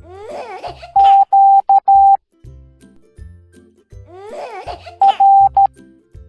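Morse code beeps on one steady high tone, sounded twice in short groups: first four beeps, long-long-short-long (the letter Q), then later three beeps, short-long-short (the letter R). Each group follows a short, giggly, sliding cartoon babble, over bouncy children's background music.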